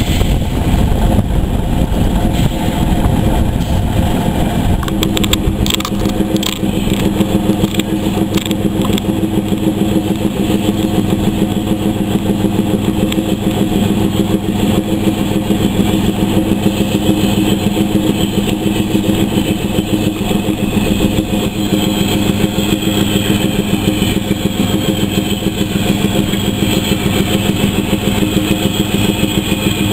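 An engine running steadily with a fast, even throb and a steady hum that grows stronger about five seconds in, with a few sharp clicks soon after.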